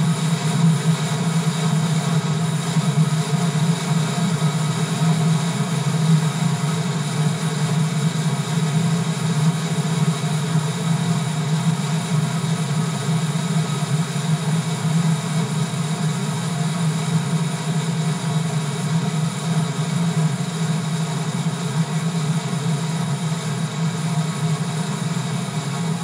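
Hundreds of Aragonese Holy Week drums, snare-type tambores and big bombos, beaten together in one continuous roll: a loud, dense, steady rumble with no separate beats, heaviest in the low boom of the bass drums.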